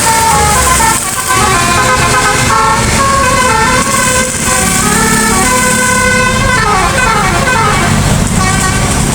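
A bus's telolet musical air horn playing a tune of held notes that change in steps, with a quick run of falling notes about two-thirds of the way through. A low engine rumble runs underneath.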